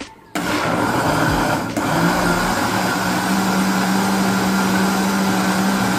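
Countertop blender switched on about a third of a second in, puréeing cooked potatoes with cream and grated mozzarella into a thick cream. The motor hum rises in pitch as it comes up to speed, then runs steadily.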